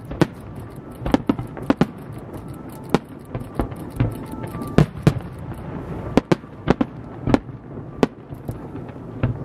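Fireworks display: aerial shells bursting in an irregular string of sharp bangs, one or two a second, over a constant background rumble and crackle.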